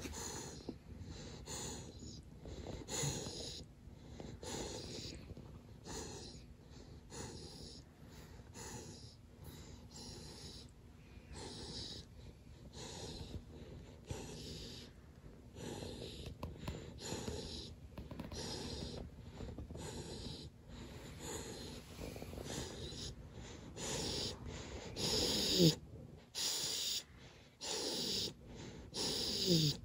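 Golden retriever puppy snoring in its sleep: short, quick noisy breaths, about one and a half a second. Near the end come two short squeaky sounds that fall in pitch, louder than the breathing.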